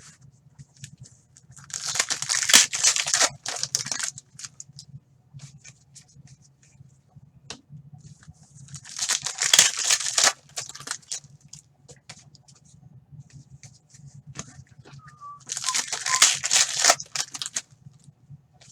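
Trading-card pack wrappers being torn open, three times, each tear lasting about two seconds, with small crinkles and clicks of handling in between. A faint steady low hum runs underneath.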